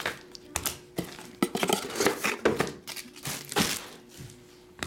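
Hands opening a small cardboard trading-card box: rustling and scraping of cardboard with a run of sharp taps and clicks, and a hard plastic card holder set down on a table near the end.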